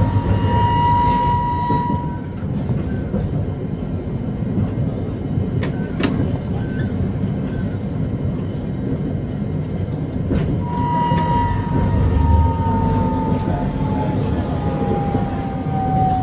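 Hakodate city tram running, with a steady low rumble of wheels on rail throughout. The traction motor's whine stops about two seconds in, a few sharp clicks sound midway, and the whine comes back about ten seconds in, slowly falling in pitch as the tram slows.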